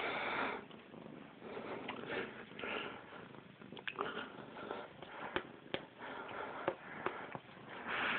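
A cat play-fighting and rabbit-kicking against a hand on a quilted bedspread: irregular bursts of rustling and scuffling, loudest at the start and near the end, with a few sharp clicks in the middle.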